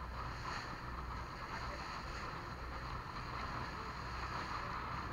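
Motorboat under way: a steady low engine drone with water rushing along the hull and wind on the microphone.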